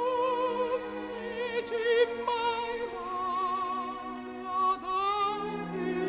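Slow operatic music: a high, soprano-range voice sings a legato melody with wide vibrato, stepping up in pitch about three seconds in, over long sustained low chords.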